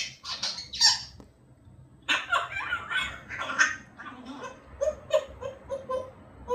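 Pet parrot babbling to itself in speech-like chatter that the transcript catches no words in. Near the end it breaks into a run of short whistled notes.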